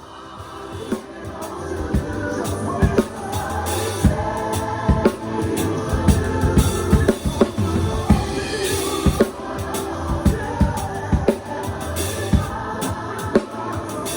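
Drum kit played with a band: kick and snare strokes over sustained bass and chords, fading in over the first couple of seconds.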